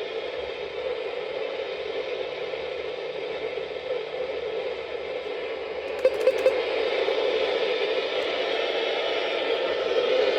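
Steady static hiss from a radio receiver tuned to an open channel. About six seconds in come three quick clicks, after which the hiss is a little louder.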